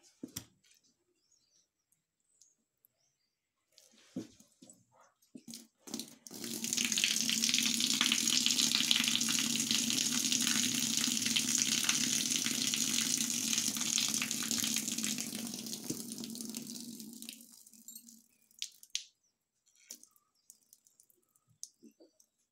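A steady stream of liquid splashing down. It starts about six seconds in, runs for about eleven seconds and tails off, with a few faint knocks before and after.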